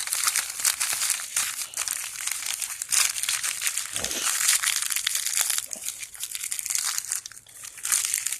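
Plastic packaging crinkling and crackling as it is handled and opened, almost without pause, with brief lulls about four seconds in and near the end.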